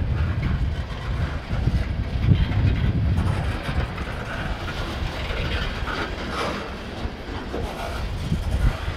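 Covered hopper cars of a grain train rolling by on the rails: a steady low rumble of steel wheels, with now and then a clack over a rail joint.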